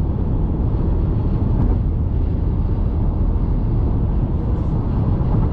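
Car driving: a steady low rumble of road and engine noise.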